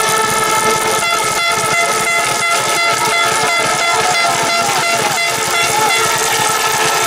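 A crowd of ski-flying fans blowing air horns and fan trumpets, many held notes at different pitches sounding together. A regular beat about twice a second runs through the middle.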